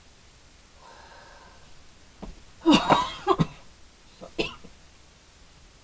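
Woman coughing just after a puff on her asthma inhaler: a quick run of loud coughs between about two and a half and three and a half seconds in, then one more about a second later.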